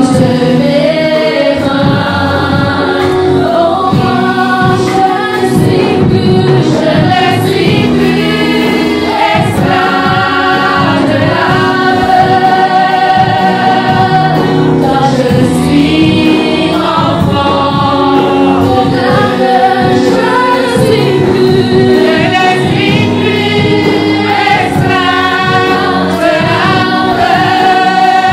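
Gospel worship song sung by a group of women's voices together, over keyboard accompaniment.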